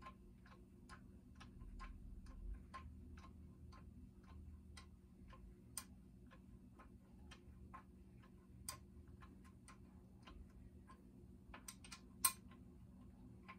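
Light, regular clicking, about two to three clicks a second, with a few sharper clicks, as a long hex key is turned by hand to back out an outboard lower-unit bolt. A faint steady hum lies underneath.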